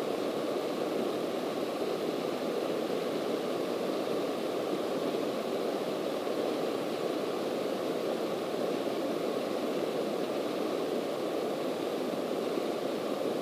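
Steady engine, propeller and airflow noise heard inside the cabin of a single-engine Cessna in level flight, an even drone with no change in pitch or power.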